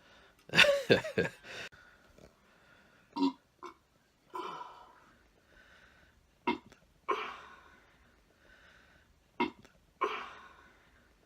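A loud, low belch about half a second in, lasting roughly a second. Several shorter, quieter sounds follow, each with a sharp start and a fading tail.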